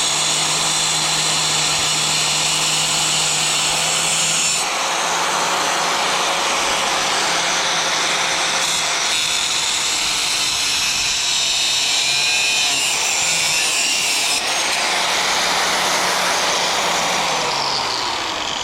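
Angle grinder cutting through a rusted bolt, running steadily under load. Near the end it is switched off and spins down with a falling whine.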